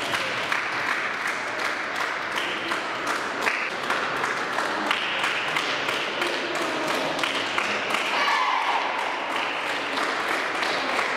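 Volleyball spectators clapping steadily and cheering, with shouting voices rising out of the crowd about eight seconds in.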